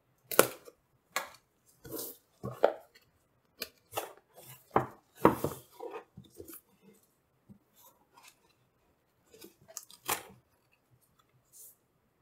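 Packaging of a graphics card support bracket being opened and handled: irregular knocks, scrapes and rustles, busiest in the first six seconds, with one more sharp knock about ten seconds in.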